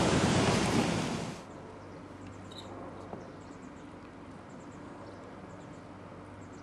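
Loud rushing noise cuts off abruptly about a second and a half in. After it come a faint steady low hum and faint, high-pitched chirping ticks, like insects.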